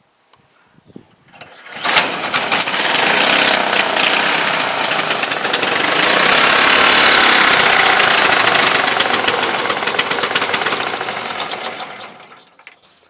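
A small petrol engine with a single spark plug catches and runs loudly for about ten seconds, then dies away near the end as its spark is cut by pulling the lead off the spark plug.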